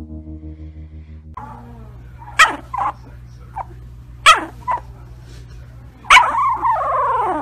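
A sleeping puppy yipping and whimpering in its sleep: about five short, sharp yips, then a longer whining howl near the end that falls in pitch.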